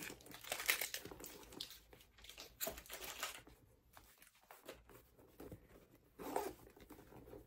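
Irregular rustling, crinkling and soft knocks as small items are lifted out of a packed leather shoulder bag (Coach Pillow Tabby), with a louder rustle about six seconds in.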